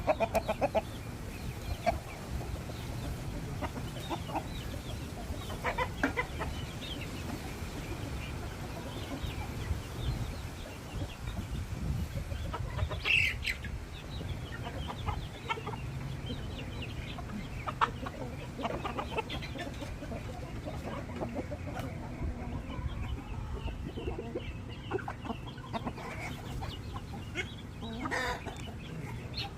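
Free-range chickens clucking: many short, scattered calls throughout, with one louder call about 13 seconds in, over a steady low rumble.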